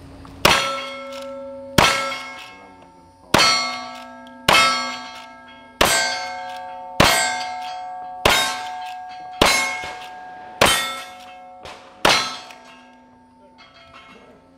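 Ten lever-action rifle shots, roughly one every 1.2 s, each followed at once by the ringing clang of a steel plate target being hit.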